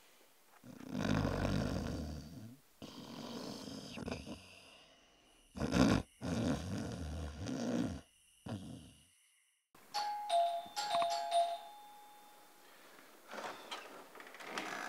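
A man snoring loudly, several long snores in a row, then a two-note ding-dong doorbell chime about ten seconds in.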